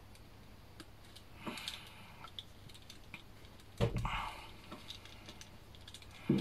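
Faint clicks and rustles of a small plastic action figure being handled and posed, with a sharper knock about four seconds in and another near the end.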